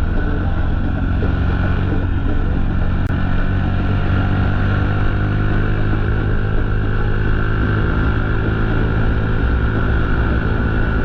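Motorcycle engine running steadily on the move, its pitch drifting gently up and down with speed.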